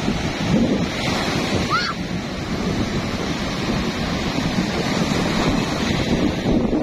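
Small waves breaking and washing up over the sand in shallow surf, a steady rush of water, with wind buffeting the microphone.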